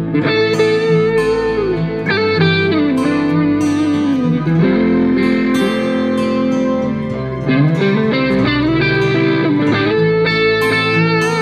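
Background music led by guitar, with sustained notes that bend and slide in pitch over a steady low accompaniment.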